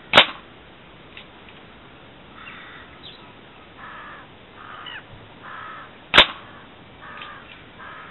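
Two sharp cracks of air-gun shots striking the splatter target, about six seconds apart. Between them a crow caws repeatedly in the background.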